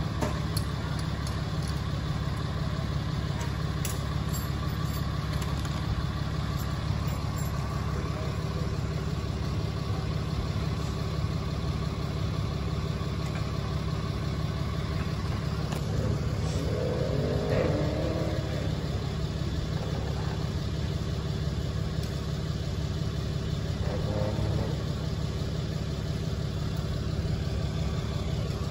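Tow truck's engine idling steadily with a low, even hum.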